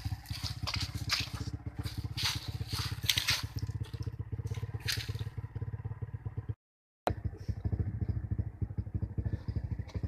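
Crunching and crackling of footsteps on dry leaves and stony ground, over a steady low rumble; the sound drops out briefly about seven seconds in.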